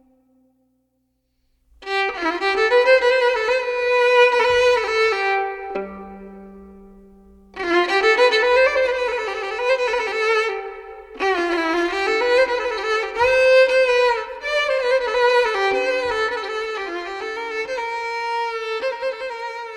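Background music: a slow melody with wavering, sustained notes. It starts after about two seconds of silence and dips between phrases twice.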